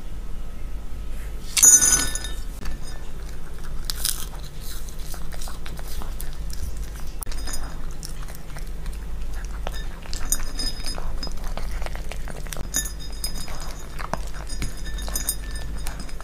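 A toy poodle crunching and chewing dry kibble and freeze-dried egg yolk pieces, with pieces clinking against its bowl. There is a loud clatter about two seconds in.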